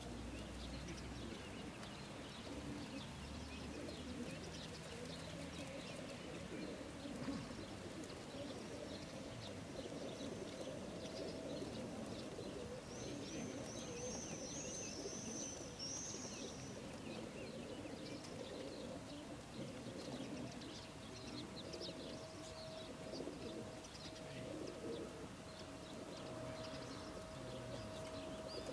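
Many crated racing pigeons cooing together in a low, continuous murmur, with small scratching clicks among them. A small bird chirps briefly about halfway through.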